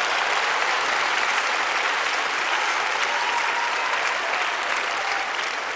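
Large church congregation applauding steadily, easing off a little near the end.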